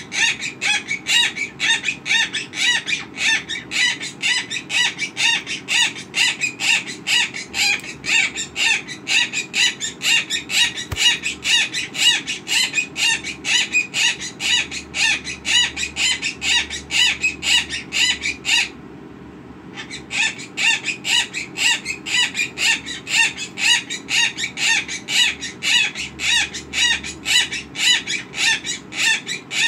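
Quaker parrot (monk parakeet) giving a long, rapid run of repeated short 'ahh' calls, about two to three a second, which the owner takes for sex noises, possibly imitating an alarm clock. The calls break off for about a second roughly two-thirds of the way through, then start again.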